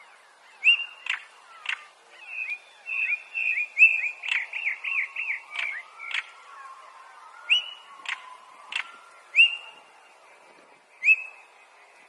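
Stonechat calling: short whistled notes mixed with hard, dry clicks, with a quick run of chattering notes in the middle.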